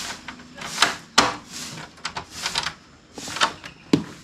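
A door being opened: a couple of sharp latch clicks among scuffing and rustling.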